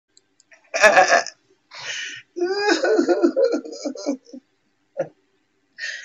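A person's voice making sounds without clear words, in several short bursts: a sharp burst about a second in, then a longer stretch of wavering voicing.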